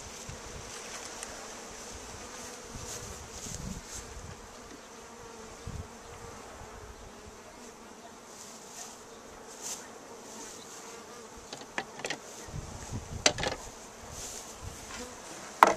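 Honey bees buzzing steadily around the opened colony, with a few sharp knocks near the end.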